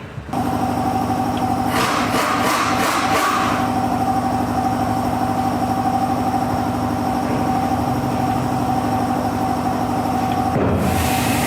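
A motor-driven machine running steadily with a fast rattle, turning harsher and noisier for about a second and a half from about two seconds in and again near the end.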